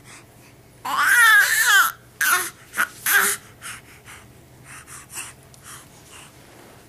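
A four-month-old baby vocalizing: one loud, high-pitched wavering squeal about a second in, then shorter, fainter squeaks and breathy sounds that die away.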